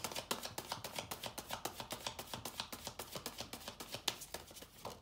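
A tarot deck being shuffled by hand: a quick, steady run of card clicks, about eight a second, that stops near the end.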